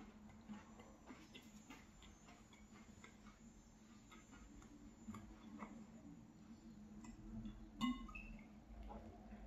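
Quiet chewing of a chocolate cookie with faint, scattered mouth clicks. Just before the end comes one sharp click with a short ring as a bottle is raised to the lips to drink.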